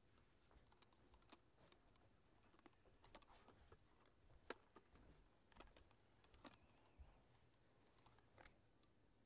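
Near silence: room tone with scattered faint clicks and taps, the most prominent about halfway through.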